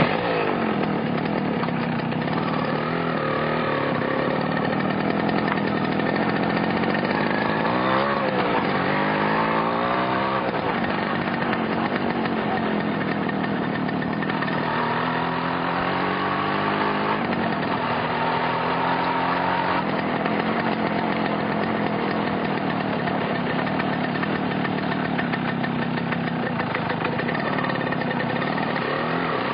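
Motorcycle engine running steadily, its pitch rising and falling as the throttle is blipped a couple of times near the middle.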